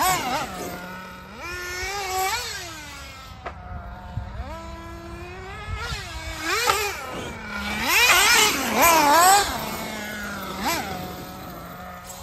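Radio-controlled off-road cars' electric motors whining, the pitch rising and falling again and again with the throttle, loudest about eight to nine and a half seconds in.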